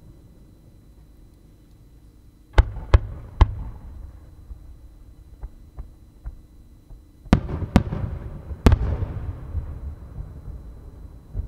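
Aerial firework shells bursting. Three sharp bangs come about two and a half seconds in and a few fainter pops follow; three more loud bangs come around seven to nine seconds in, with a rumbling echo dying away after them, and one more bang comes right at the end.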